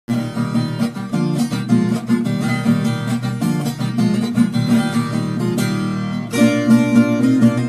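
Instrumental intro of a sertanejo raiz song: viola caipira played with quick plucked notes over a bass line, starting suddenly out of silence.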